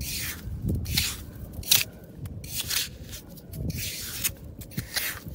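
A small metal hand shovel scraping and digging into wet beach sand in a run of quick strokes, about one or two a second.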